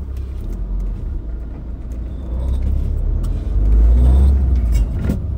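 Low rumble with no voice over it, swelling about three and a half seconds in and easing again near the end.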